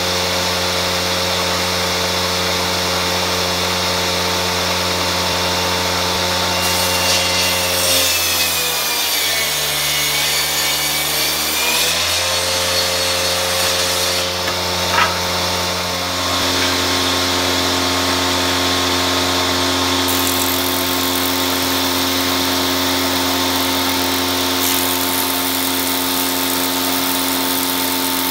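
Band saw running and cutting through a thick wooden plank, its motor hum steady over a continuous sawing noise. About eight seconds in, the motor's pitch sags as the blade is loaded and comes back up about four seconds later. A single sharp click comes about fifteen seconds in.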